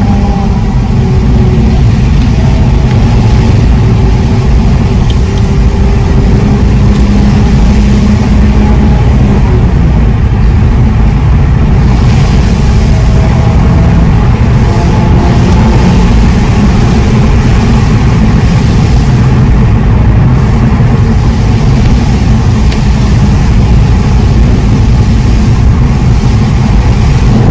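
Nissan Fairlady Z (Z34) 3.7-litre V6 pulling steadily, heard from inside the cabin over a heavy, constant rumble of tyres and road. A faint engine note shifts slightly in pitch in the first few seconds.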